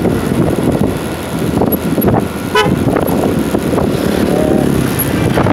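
Motorcycle riding along a road, its engine and road noise steady, with one short vehicle horn toot about two and a half seconds in.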